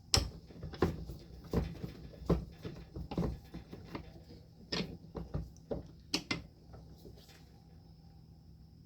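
Irregular metal knocks and clinks as sockets and a dryer drum roller are set in a bench vise and the vise is closed on them, about a dozen sharp hits that stop about six and a half seconds in.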